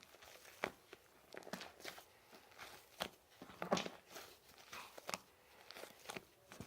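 Slime being squeezed and pressed by hand, giving off irregular small pops and crackles, the loudest a little after three seconds in.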